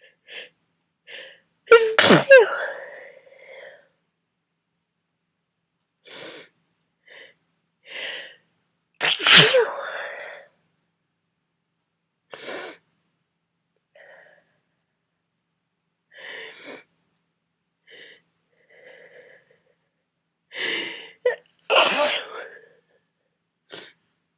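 A person with a heavy cold sneezing hard three times, about 2 seconds, 9 seconds and 22 seconds in. Short, sharp breaths are drawn in between as each sneeze builds.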